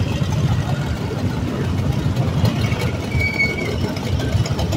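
Motorcycle engines running at low revs as bikes ride slowly past one after another, a dense low rumble with fast pulsing. A brief high tone sounds about three seconds in.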